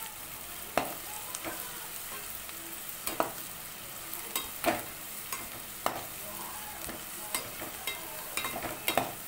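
Chopped onion, green chilli, garlic and ginger sizzling in hot oil in a metal pan as they are sautéed soft, with a slotted metal spatula scraping and tapping against the pan at irregular intervals of about a second.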